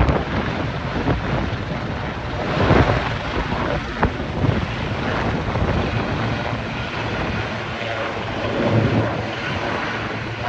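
Two helicopters flying overhead, a steady low rotor and engine hum, with gusts of wind on the microphone.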